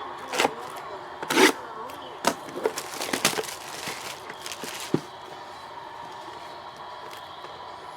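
A sealed trading-card box being opened by hand: a run of sharp cracks, snaps and crinkles of cardboard and wrapping through the first five seconds, busiest in the middle, then only a steady low background hum.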